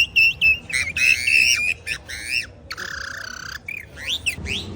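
A handmade mouth-held bird-call whistle, wetted before use, blown to imitate a bird: quick chirps, then a warbling trill, a buzzy squawk in the middle and rising chirps near the end.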